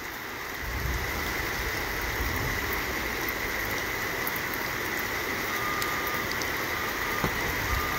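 Steady rush of rain and floodwater running over the road.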